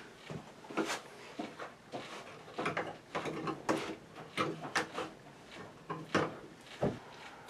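The clamp screws of a metal electrical outlet box being turned to tighten the box into a wood-panelled wall, giving a run of irregular mechanical clicks and ticks.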